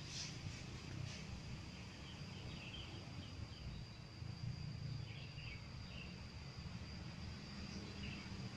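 Outdoor lakeside ambience: a steady high insect drone and a few short bird-like chirps over a constant low rumble.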